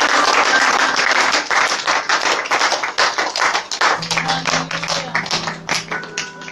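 Congregation applauding: many hands clapping densely, then thinning and dying away over the last two seconds. Held music notes sound underneath, with a low note coming in about four seconds in.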